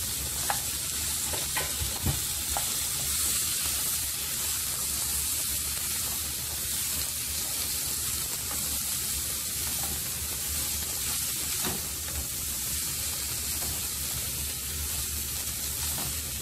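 Cauliflower florets sizzling in hot oil in a pan as a wooden spatula stirs them through fried onions. A few light knocks of the spatula against the pan come in the first few seconds and once more near the middle.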